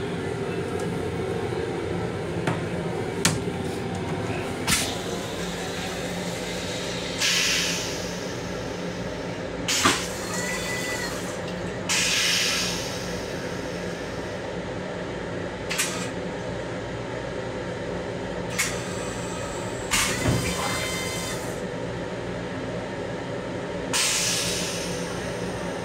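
M7 railcar toilet giving a series of short hissing sprays, about seven over the stretch, each lasting under a second, over the steady hum of the moving railcar. A few sharp clicks sound, and a louder knock comes just before one of the sprays, about ten seconds in.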